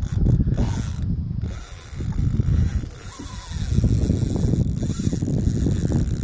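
Conventional fishing reel clicking and whirring under the load of a hooked sturgeon on a deeply bent rod.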